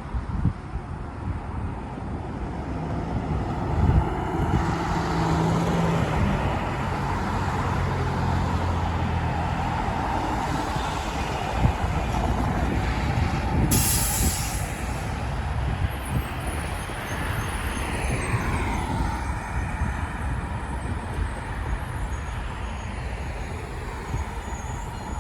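2003 Blue Bird International 3800 school bus going past with its diesel engine running, amid steady road traffic. A short, loud hiss of air sounds about fourteen seconds in.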